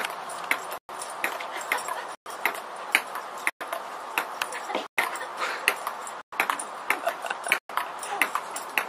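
Ping-pong ball clicking on a table-tennis table, many sharp taps at uneven spacing. The sound cuts out for an instant about every second and a half.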